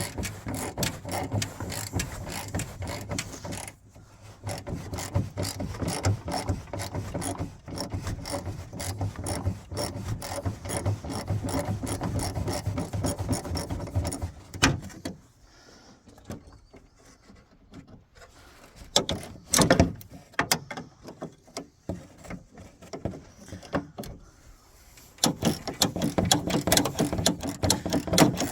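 Ratchet wrench clicking in rapid runs while backing out the hood latch bolts. There is a quieter stretch with only scattered clicks from about 15 to 25 seconds in, before the clicking picks up again.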